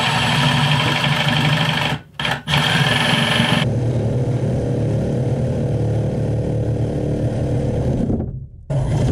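Reciprocating saw cutting through a PVC vent pipe, its motor and blade running steadily. It stops briefly twice about two seconds in, the higher rasp falls away a little after three and a half seconds, and it stops near the end, then starts again.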